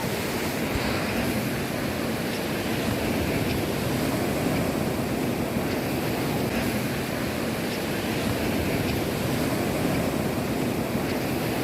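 Heavy sea surf washing onto a sandy beach: a steady, unbroken rush of waves with some wind.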